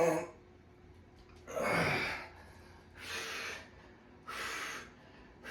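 A man breathing hard from the exertion of chin-ups: loud, heavy breaths about every second and a half. The loudest, about two seconds in, comes with a voiced gasp.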